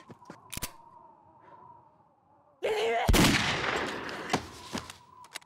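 Gunfire in a drama soundtrack: a sudden loud burst of shots about two and a half seconds in, the heaviest report just after, then a few more sharp cracks as it trails off.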